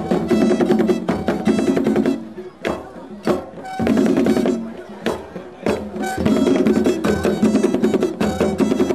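Zaouli mask-dance orchestra playing: rapid drum strokes under a pitched melody line, dropping back briefly twice in the middle before coming in full again.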